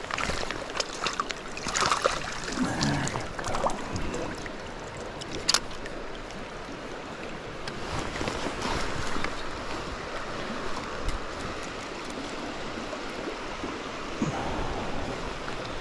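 Trout stream water running steadily, with irregular splashes and knocks in the first few seconds and one sharp click about five and a half seconds in, as a small trout is brought to hand.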